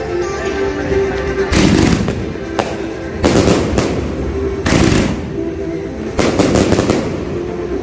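A 228-shot fireworks cake firing: shots rising and bursting overhead as a string of loud bangs about a second apart, with a few in quick succession near the end.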